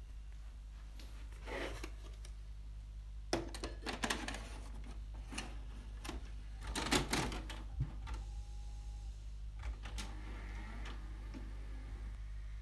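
Plastic clicks and clunks of a VHS cassette being handled and pushed into the slot of an Orion TV/VCR combo, the deck's loading mechanism clunking as it takes the tape, with the loudest clatter about seven seconds in and a brief faint whine just after. A steady low hum runs underneath.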